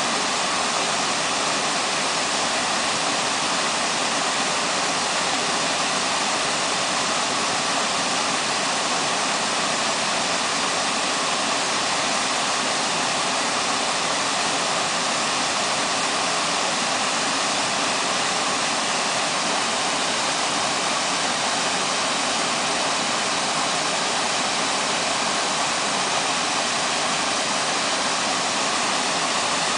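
Waterfall rushing: a steady, unbroken hiss of falling water that holds an even level throughout.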